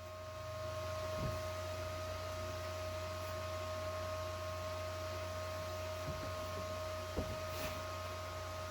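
A steady low hum with a constant higher tone over it, and a few faint low knocks, about a second in and twice near the end.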